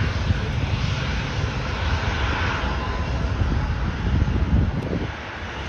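Jet engine noise from an airliner taking off and climbing away: a broad rushing noise over a low rumble, easing slightly near the end.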